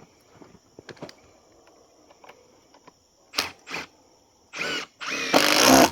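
Power drill driving screws through a steel bracket into a log, in short trigger bursts: two brief ones, a third a little longer, then the longest and loudest run near the end.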